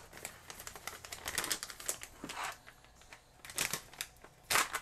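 Metallized anti-static shielding bag crinkling and rustling as it is handled, with scattered light clicks, while a plastic tube of transistors is slid into it.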